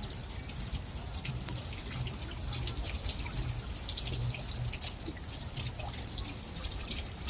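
Water splashing and trickling off a small water wheel: a steady run of falling water dotted with many quick drips and splashes.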